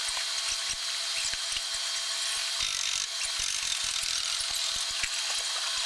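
Aircraft assembly-shop work noise: many quick, irregular clicks and ticks of tools and parts over a steady high hiss and a faint high tone.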